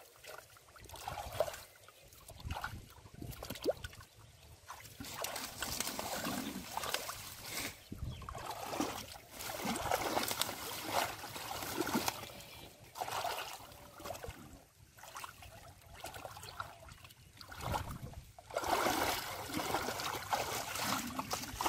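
Hands sloshing and splashing in shallow muddy water, stirring the mud in irregular bouts while groping for catfish. The bouts grow louder about nine seconds in and again near the end.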